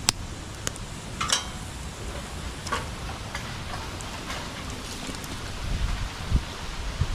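Bonfire burning with a steady hiss and crackle and several sharp pops, the loudest right at the start and about a second in, with a low rumble near the end.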